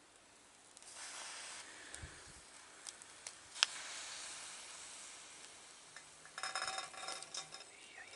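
Food sizzling on a charcoal grill, a steady hiss that sets in about a second in. A sharp tap comes a few seconds later, and a short rattle near the end.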